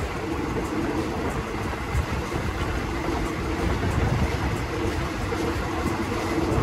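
Steady running noise of a passenger train heard from aboard a coach: the wheels rumbling on the rails, with a faint steady hum over it.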